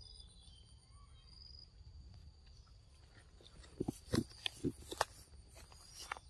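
A macaque clambering down a tree trunk: a quick, irregular run of scrapes and knocks of hands and feet on bark, starting a bit over halfway through, over faint insect hum.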